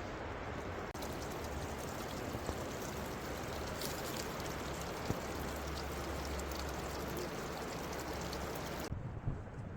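Steady rushing of running water, an even hiss that comes in abruptly about a second in and falls away near the end.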